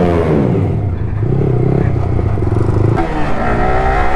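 Yamaha R15 V3's single-cylinder engine and exhaust under way, its pitch falling just after the start, holding fairly steady, then climbing again about three seconds in and dropping back near the end.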